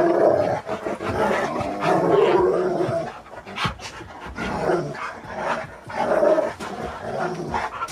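Two husky-type dogs play-wrestling, vocalizing in rough grumbling noises and panting, with scuffling on the carpet; the noises come in two spells, a longer one at the start and a shorter one about two-thirds of the way in.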